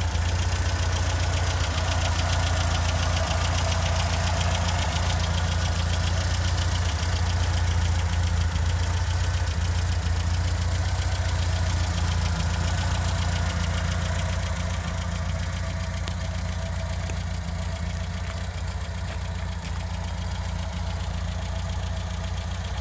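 1978 MGB GT's 1.8-litre B-series four-cylinder engine idling steadily, a little fainter over the last third.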